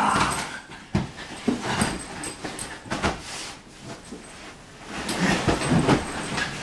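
Irregular thumps and rustling of bedding as a whippet puppy leaps and scrambles on a mattress and a man's hands shove a blanket around. There is a louder flurry near the end.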